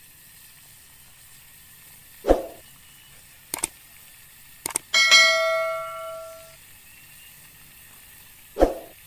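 Subscribe-animation sound effects: a short loud whoosh, a couple of sharp mouse clicks, then a bright notification-bell ding that rings out for about a second and a half, and a second whoosh near the end, over a faint steady hiss.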